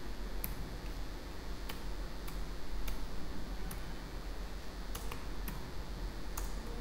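Computer keyboard keystrokes, about nine sharp separate clicks at an uneven pace, as lines of code are copied and pasted with keyboard shortcuts and Enter, over a low steady electrical hum.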